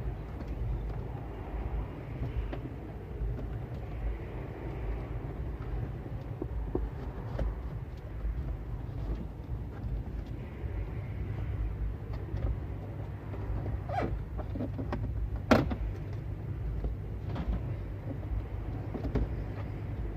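Scattered light clicks and knocks of plastic dash trim and cable being handled as a microphone wire is fed behind the trim, with one sharp click about fifteen seconds in, over a steady low rumble.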